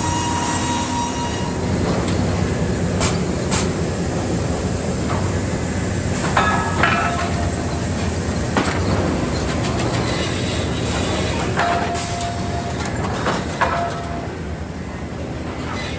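Sawmill machinery running steadily, with short high metallic squeals and clanks a few times.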